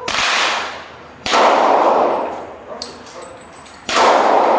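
Three handgun shots fired one at a time, the second about a second and a quarter after the first and the third about two and a half seconds later. Each shot is sudden and loud and is followed by a long echo under the range's roof.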